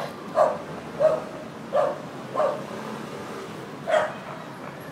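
A dog barking in short, sharp single barks: four in quick succession, then one more after a pause.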